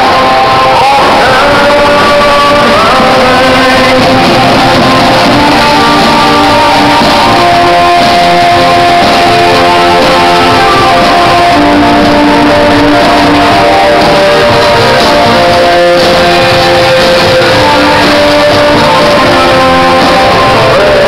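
Loud music with guitar and a singing voice.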